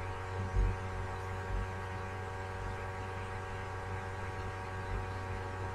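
Steady electrical hum with faint hiss, and a couple of soft low bumps in the first two seconds.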